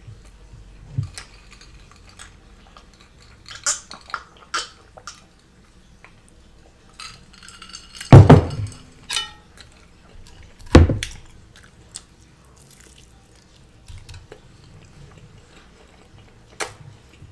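A metal fork clinking and scraping on a large serving platter, with scattered small clicks. Two heavy thumps about eight and eleven seconds in are the loudest sounds.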